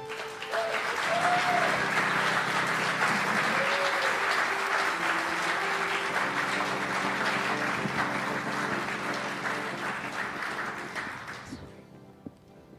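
Live audience applauding a band's entrance, dying away near the end.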